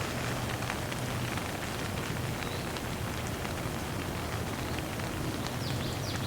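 Light rain falling steadily, an even hiss with individual drops ticking on a surface. A few short, high chirps come in near the end.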